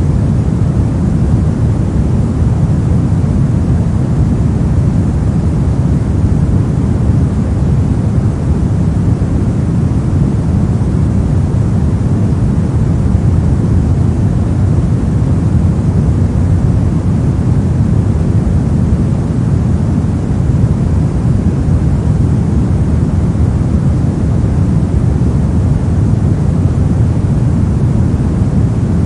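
Steady synthetic pink noise: an even, unbroken hiss weighted heavily to the low end, so it sounds like a deep rumble with a softer hiss above.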